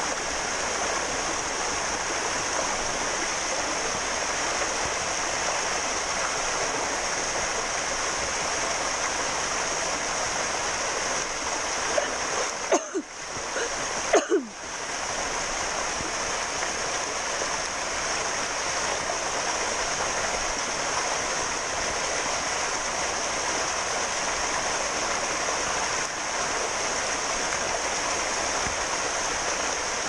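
Small waterfall splashing into a rock pool: a steady rush of falling water, briefly broken about twelve to fourteen seconds in by a couple of short sharp sounds.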